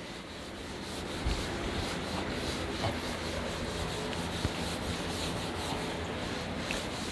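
A board duster rubbed steadily across a chalkboard, wiping off chalk writing.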